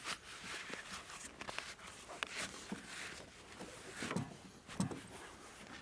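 Nylon ratchet-strap webbing being handled as its tail is pulled through the coil and flipped over: faint scattered rustles and brushing with a few light knocks.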